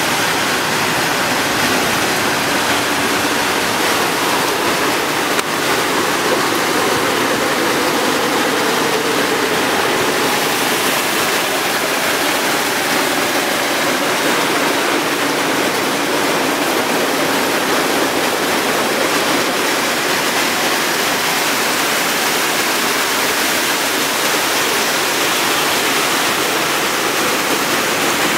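PET bottle crushing and washing line running: the crusher and wet-washing machinery make a steady, loud rushing noise.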